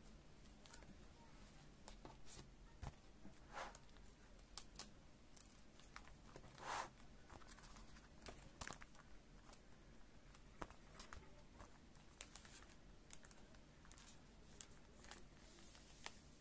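Faint crinkling of clear plastic binder sleeves and light clicks and taps of cards being handled and slid into the pockets, with a slightly longer rustle about seven seconds in.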